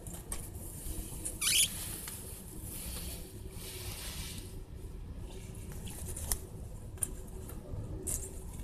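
Scratchy rustling and scraping handling noise over a low steady hum, with a short bright scrape about a second and a half in and a couple of sharp clicks later on.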